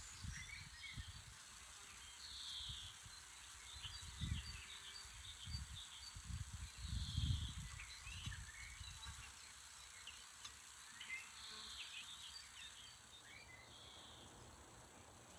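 Quiet outdoor ambience: wind buffeting the microphone in low rumbling gusts, strongest about four and seven seconds in and settling toward the end, with scattered faint high chirps.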